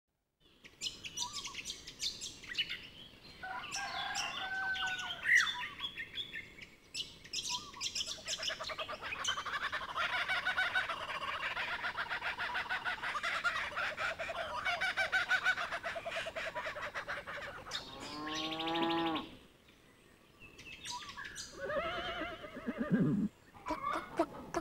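Birds chirping and squawking in a busy chorus of short, quick calls, with one longer call that rises and falls in pitch about three-quarters of the way through, followed by a brief lull before the calls resume.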